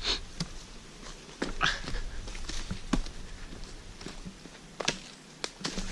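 Footsteps on a rainforest walking track, a handful of scattered steps and knocks, with two brief high calls: one at the start and one about a second and a half in.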